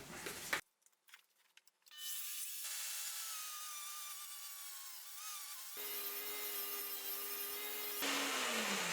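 Dremel rotary tool milling metal on a drill press: a steady grinding hiss. About six seconds in the sound changes abruptly to a steady motor hum, whose pitch falls near the end as the motor winds down.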